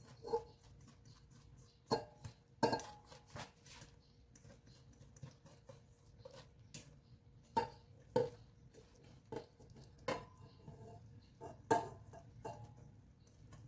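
Light clinks and taps of kitchen utensils against dishes, a dozen or so at irregular intervals, some ringing briefly.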